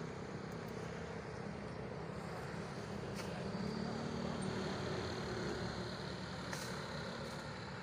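An engine running steadily, a low drone that grows a little louder in the middle and then eases off.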